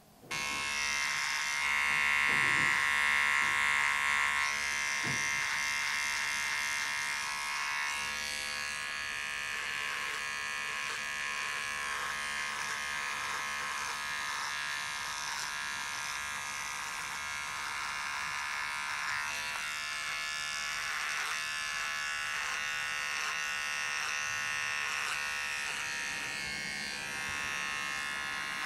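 Electric hair clippers buzzing steadily as they shave hair from a head, the buzz starting suddenly and changing a little in tone a couple of times.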